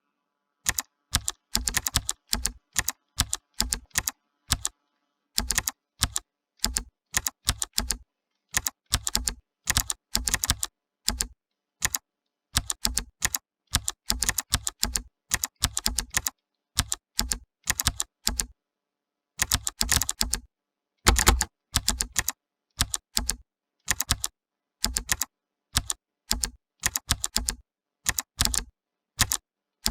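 Typing on a clicky computer keyboard: quick runs of sharp key clicks in irregular bursts, with short pauses between them and a louder flurry about two-thirds of the way through.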